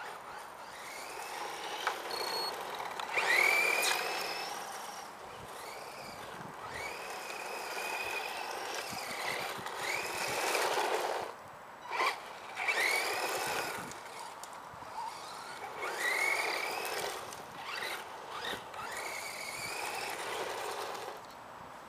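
Electric motor and geared drivetrain of an ECX Circuit 1:10 four-wheel-drive stadium truck whining in several bursts of acceleration, the pitch rising each time, with its tyres rushing over gritty asphalt.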